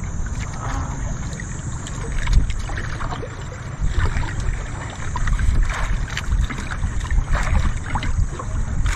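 Wind buffeting the microphone over water lapping and sloshing against the hull of a wooden outrigger boat, with scattered small knocks and splashes.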